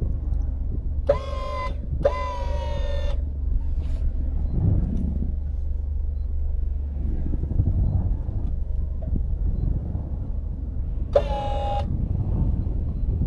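A vehicle engine running with a steady low rumble, and a car horn sounding three times: two short toots close together about a second in, and one more near the end.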